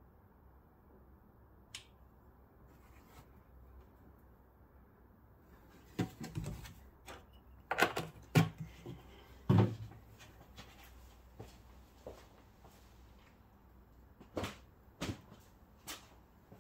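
A series of sharp knocks and clunks from objects being handled and set down, bunched about six to ten seconds in, with a few more near the end.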